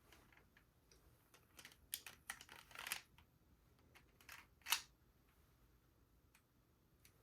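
Plastic clicks and rattles of a LEGO brick-built pistol being handled: a quick cluster of light clicks about two to three seconds in, then a single sharp click a little under five seconds in.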